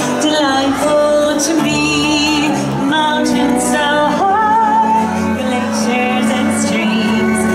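A woman singing held notes with vibrato over instrumental accompaniment.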